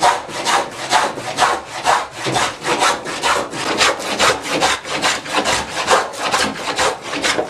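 Wooden coffin smoothing plane being pushed across the grain of a board in quick, short, even strokes, about five a second. Its blade is unsharpened and nicked, yet it still cuts shavings.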